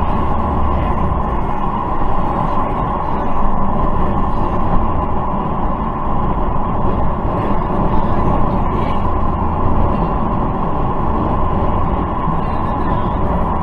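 Steady road and wind noise with a low engine rumble, heard from inside a car cruising at highway speed through its dash camera.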